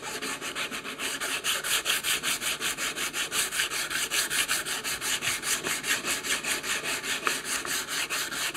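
Coarse sandpaper wrapped around a bottle rubbing back and forth on the edge of a wooden cutting board, in quick, even strokes about six a second, rounding over and breaking the edges.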